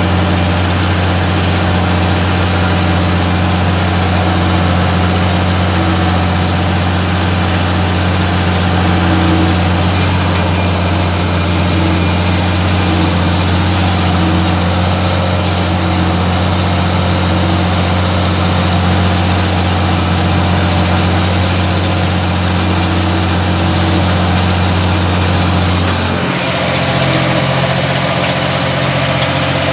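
Ursus 1224 tractor's diesel engine running steadily at a constant speed; near the end the engine note changes.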